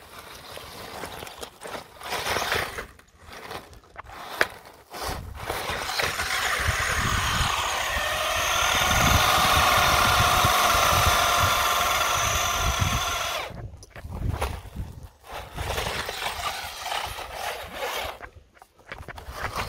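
Electric motor and gears of a WLToys 12427/12428 RC buggy whining in short bursts as the throttle is blipped. In the middle there is a long, steady, louder whine of about seven seconds while the buggy climbs concrete steps under load.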